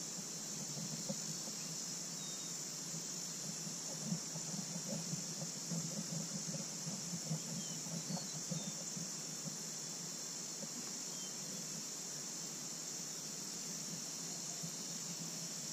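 Steady, high-pitched insect chorus of crickets. Small irregular knocks and rustles of handling in the kayak come between about one and nine seconds in.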